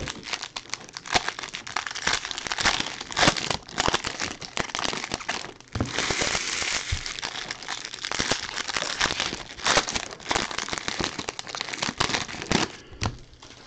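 Foil wrappers of Bowman baseball jumbo card packs crinkling and crackling as the packs are handled and ripped open by hand, a dense run of sharp crackles that thickens about six seconds in.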